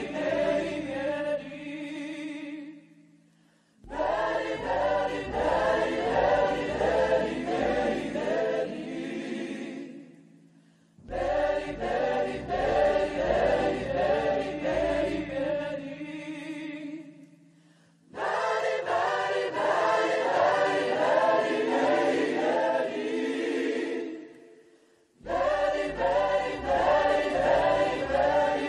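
A large choir singing in long phrases of about six seconds, each breaking off into a brief silence, four times over.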